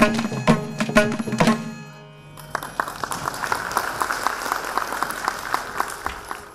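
Mridangam and ghatam strokes over held accompanying notes, closing a Carnatic piece about two seconds in, followed by applause.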